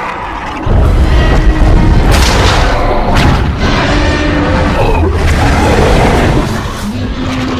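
Monster-battle film soundtrack: a heavy low boom kicks in just under a second in, followed by further sudden blast-like impacts, all over dramatic orchestral score.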